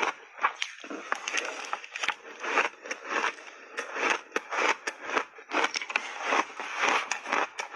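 A mouthful of crunchy frozen shaved ice coated in milk powder being chewed: a dense, irregular run of crisp crunches and crackles.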